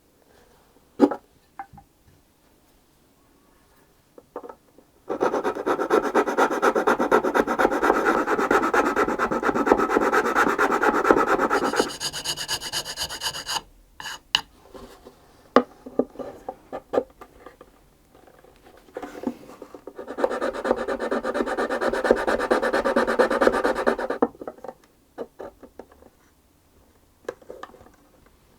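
A hand tool rasping steadily on wood in two long spells, the first about eight seconds and the second about four, with scattered light knocks of wood and tools in between: the violin neck is being worked to fit the body.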